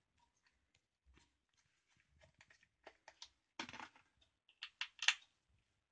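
Faint handling noises: scattered light clicks and taps on a Heiniger Saphir dog clipper's plastic case as it is picked up and worked on to undo its case screws, with two short louder scrapes about three and a half and five seconds in.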